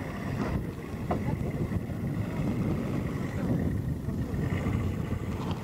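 Toyota off-roader's engine running at low revs as it crawls through deep dirt ruts, with wind rumbling on the microphone.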